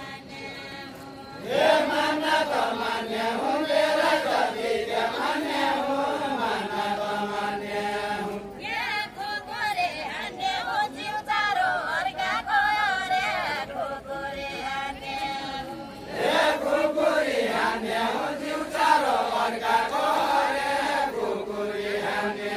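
Unaccompanied group singing of a Deuda folk song from far-western Nepal: many voices chant a slow, wavering melody together. The singing swells in about a second and a half in, and the verse seems to pass to another set of voices about eight seconds in and back again around sixteen seconds.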